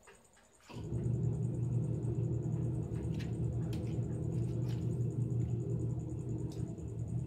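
A steady low rumbling hum starts abruptly under a second in and runs on, with a few light clicks over it and a faint, constant high cricket trill behind.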